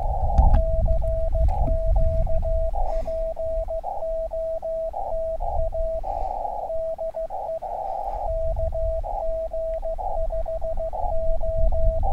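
Morse code (CW) from a portable Elecraft KX2 ham radio transceiver: a single steady mid-pitched beep keyed into dots and dashes, with patches of filtered band hiss in the longer gaps and a low rumble underneath.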